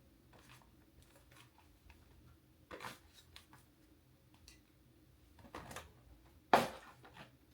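Small products and packaging being handled and set down on a surface: scattered light clicks and rustles, with a sharper knock near the end.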